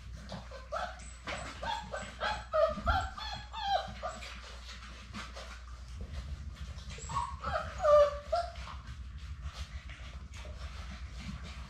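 Labrador Retriever puppies nursing from their mother, whimpering and yipping in short high cries: a run of them over the first few seconds, then another burst about seven seconds in. Small clicks sound throughout.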